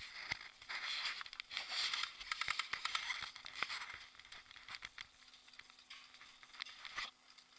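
Close rustling and crackling of an airsoft player's clothing and gear against a head-mounted camera, with light steps on dry dirt. Scattered sharp clicks run through it, the loudest about seven seconds in.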